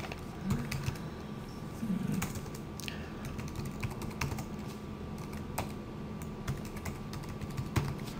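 Typing on a computer keyboard: irregular keystroke clicks, a few at a time with short pauses between.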